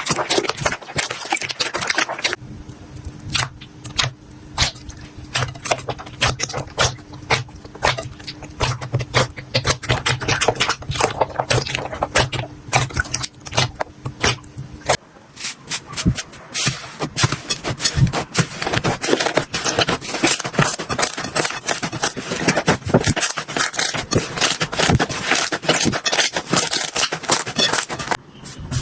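Slime being squeezed and poked by hand: a rapid, uneven run of sticky pops and clicks that changes character at each cut between clips, with a steady low hum under the middle stretch.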